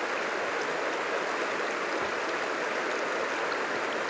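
River water rushing steadily over a shallow rocky rapid: an even, unbroken rush.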